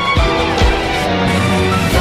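Music: sustained instrumental tones over a steady drum beat.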